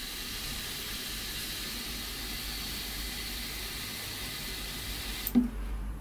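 BMW M54 fuel injector held open on a bench rig, spraying pressurised fuel and injector cleaner as a fine mist with a steady hiss: the even mist of a healthy injector. A short knock about five seconds in, after which the hiss drops away.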